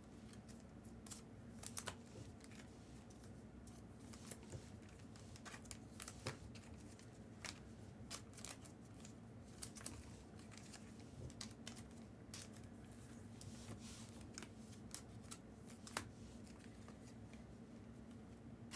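Faint, irregular clicks and light rustles of trading cards and their sleeves or holders being handled, over a faint steady hum.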